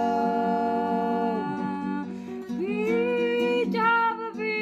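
Georgian folk song: singing held on long notes over a plucked string instrument, with a new phrase starting about halfway through.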